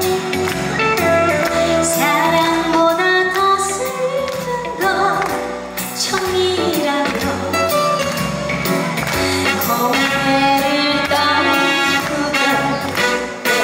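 A woman sings a trot song live into a handheld microphone over amplified backing music with a steady bass beat.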